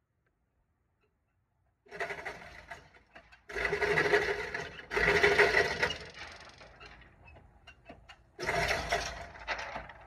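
Glock 43X 9mm pistol firing several shots at irregular intervals in an indoor range, the first about two seconds in and the last near the end, each followed by about a second of echo.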